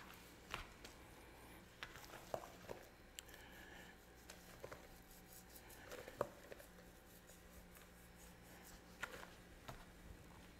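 Near silence with scattered faint taps and scrapes: a fillet knife trimming fat from a raw brisket on a plastic cutting board, and gloved hands moving the meat.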